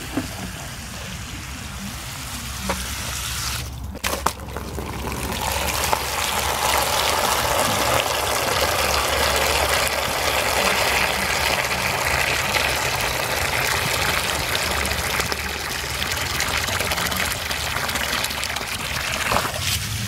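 Garden hose water spraying onto grass. After a short break about four seconds in, the jet pours into a plastic tub of water, a louder, steady splashing fill.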